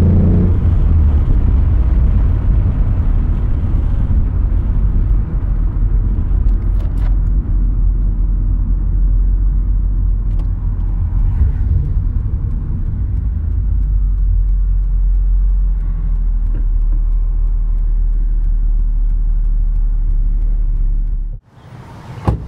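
Mercury Cougar's exhaust, a 2.5-inch Trubendz cat-back with a Dynomax Super Turbo muffler, running at a steady idle with a deep low rumble. The exhaust sound cuts off abruptly near the end, and a single sharp knock follows.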